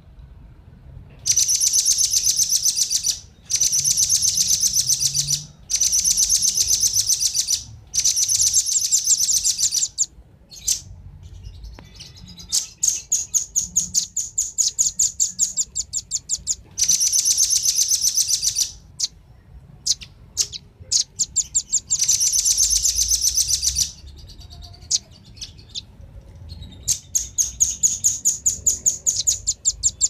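Velvet-fronted nuthatch calls, male and female: rapid trills of sharp, high chips in runs of about two seconds, broken by short gaps and scattered single chips.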